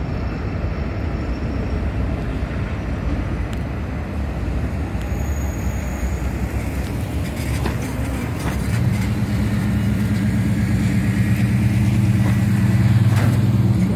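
Norfolk Southern intermodal freight train, container and piggyback cars, rolling past on the rails with a steady low rumble, its three diesel locomotives working as they pull away. A steady low hum sets in about eight or nine seconds in and grows slightly louder.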